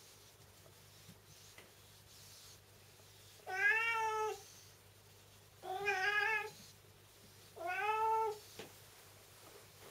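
A black-and-white cat meowing three times, each meow just under a second long, about two seconds apart.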